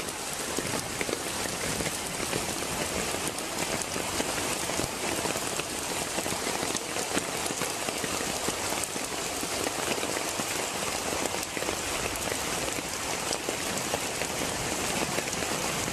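Heavy rain falling on standing floodwater, together with floodwater rushing through a gateway: a steady, dense hiss that does not let up.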